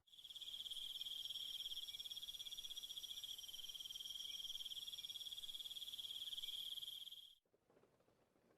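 Cricket trilling: one unbroken, high-pitched trill with a fast pulse, cutting off suddenly about seven seconds in.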